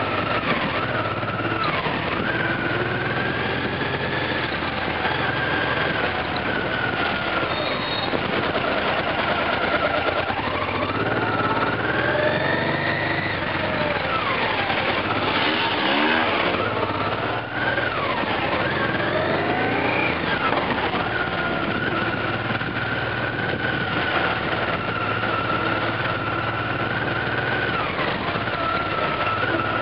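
On-board sound of a motorcycle engine riding slowly through traffic, its pitch rising and falling as the throttle is opened and closed, then holding steadier for a stretch near the end, over road and wind noise.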